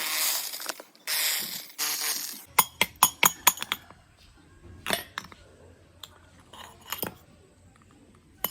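Workshop handling sounds: three short scraping bursts, then a quick run of sharp metallic clinks and taps, with a few more single clicks near the end.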